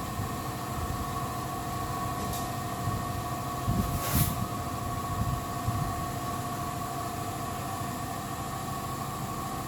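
A machine running steadily with a constant hum of two held tones over a low rumble, and one short burst of hiss about four seconds in.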